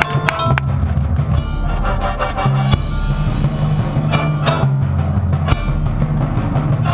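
Marching band playing its competition show: held low chords with drums and timpani, and sharp percussion hits several times.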